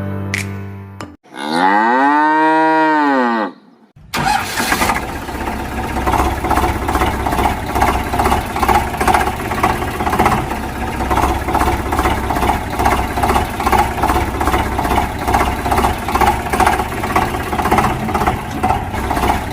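A cow's moo, one call that rises and falls in pitch about a second in, followed from about four seconds on by an engine running steadily with a fast, even pulsing.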